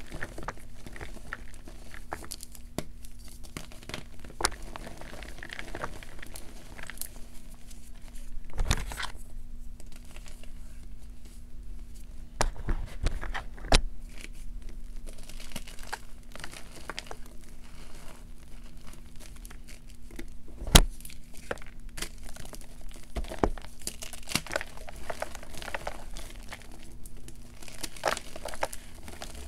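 Blocks of gym chalk being crushed and crumbled by hand into a bowl of chalk powder: dry crackling and crunching with many small clicks. Sharper snaps come as pieces break, the loudest about nine, fourteen and twenty-one seconds in.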